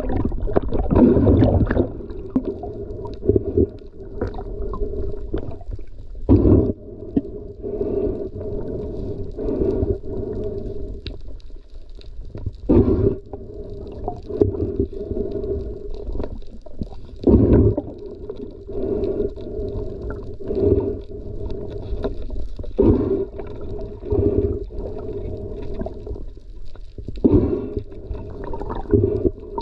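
Underwater sound picked up by a camera in a waterproof housing: a steady low hum under repeated dull surges of water moving past the housing.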